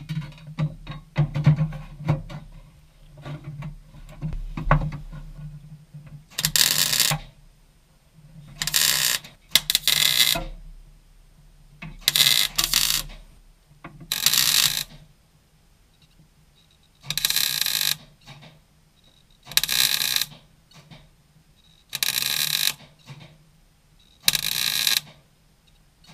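MIG welder tack-welding a sheet-steel patch panel into a van's cab floor: about ten short bursts of arc crackle, each under a second, roughly every two to three seconds. Before them come a few seconds of small metal clicks and knocks as the panel is handled.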